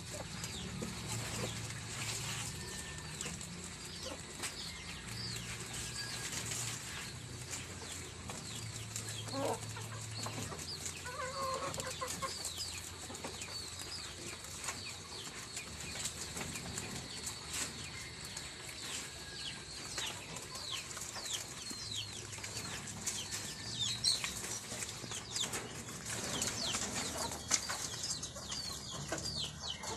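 Farmyard birds: chickens clucking now and then, and small birds giving many quick, short falling chirps that come thicker towards the end, over a steady background hiss.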